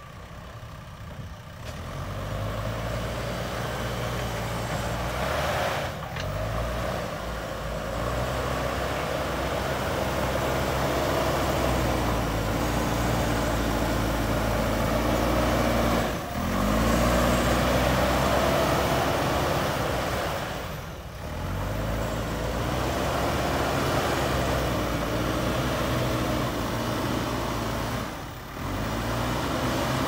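JCB 3DX backhoe loader's diesel engine working under load as the front bucket pushes soil, its pitch rising and falling again and again as the throttle opens and eases, with brief dips about 16, 21 and 28 seconds in.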